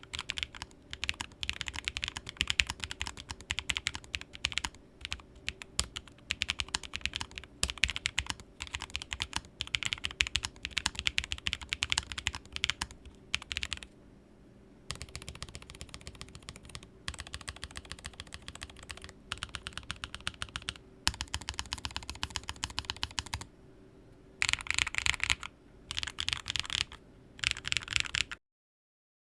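Typing on a Lofree Edge low-profile mechanical keyboard with Kailh POM 2.0 switches: a dense stream of key clicks that stops briefly about halfway, turns softer, and then comes back in a few fast, louder runs near the end before cutting off.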